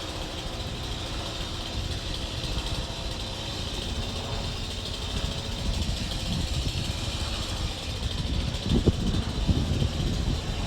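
Chainsaw engine running steadily, with a couple of sharper, louder knocks near the end.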